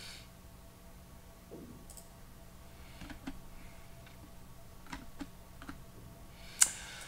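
Scattered computer mouse clicks, a handful of short clicks spread over several seconds with the sharpest near the end, over a faint steady hum.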